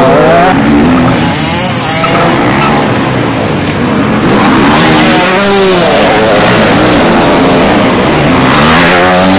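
Motocross bikes' engines revving up and down as the bikes ride through the corners, the pitch rising and falling several times as each one opens and shuts the throttle.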